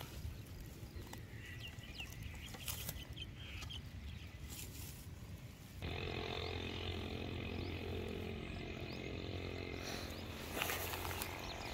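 Short rustles and crackles of dry straw mulch being handled over a low rumble; about halfway through, a steady buzzing drone with a constant pitch starts abruptly and carries on to the end.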